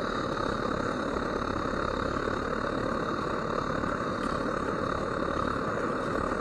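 Camping stove burner running under a pot of porridge: a steady, even rushing noise.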